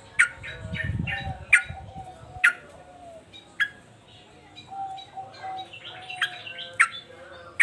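Excited male yellow-vented bulbul (trucukan) singing loud, sharp, separate notes, then a quicker run of chirps near the end. Beneath it runs a lower wavering warble, and a low rumble is heard in the first couple of seconds.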